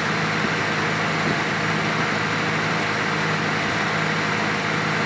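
Passenger launch boat under way at steady cruising speed: an even, low engine drone over the constant wash of water and wake along the hull.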